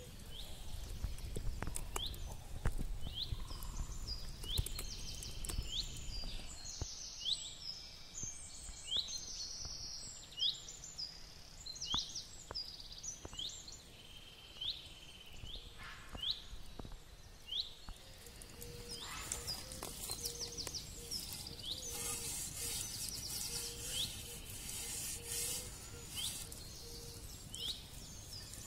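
Small birds chirping outdoors: short, sharp, high calls repeated about once a second, with scattered faint clicks and a low rumble during the first few seconds.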